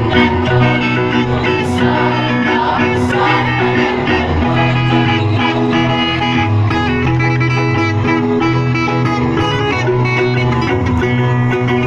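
Music playing, largely instrumental, with a steady bass line under held notes; singing is faint or absent.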